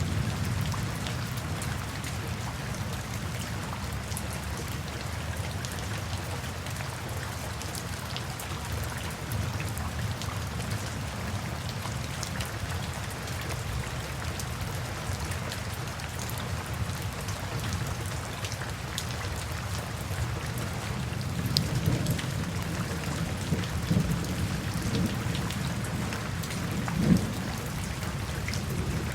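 Steady rain falling, with many small drops pattering on a surface over a low rumble. A few louder low surges come in the last third.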